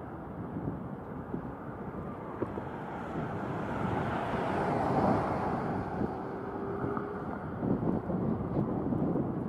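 Wind rumbling on an outdoor microphone, with a broad rushing swell that peaks about halfway through.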